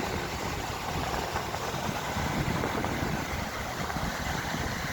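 Sea surf at a beach with wind buffeting the microphone: a steady rushing noise with a low, fluttering rumble.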